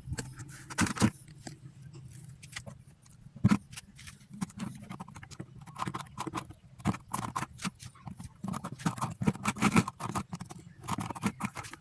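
Irregular clicking, knocking and scraping of a plastic paint bucket being worked to make holes in it.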